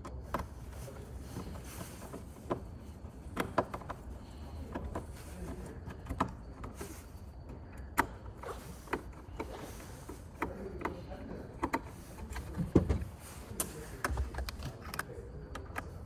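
Screwdriver working screws out of a steering wheel's metal bracket: scattered light clicks and small knocks of the tool, screws and wheel being handled, with one louder knock about thirteen seconds in, over a low steady hum.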